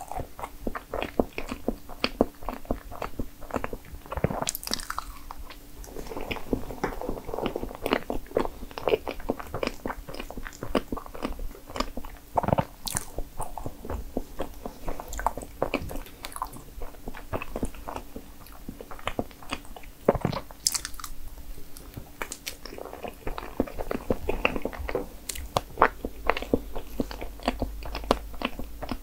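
A person chewing and biting strawberry crepe cake: a dense run of small, wet mouth clicks, with a few sharper clicks now and then.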